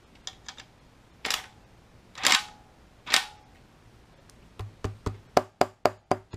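A few sharp metal clacks as the AlignIt alignment tool is pushed onto the LS1's rear cover and crankshaft. About four and a half seconds in, an even run of clicks, about four a second, begins: a ratchet drawing up the lower oil pan bolts to pull the rear cover down flush.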